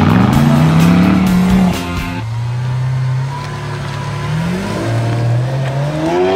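Car engines revving in quick cuts: a rising rev in the first two seconds, then a Lamborghini Aventador's V12 running low and climbing steadily in pitch as the car accelerates away near the end.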